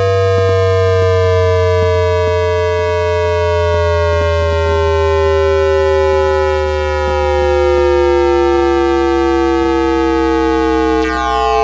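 IGBT VVVF traction inverter (CRRC Qingdao Sifang) driving Hitachi induction traction motors on a Beijing Subway Line 5 train, picked up electromagnetically by an inductor: a stack of whining tones gliding slowly down in pitch as the motors slow, over a steady low hum. Near the end the pattern of tones shifts, a change in the inverter's modulation mode.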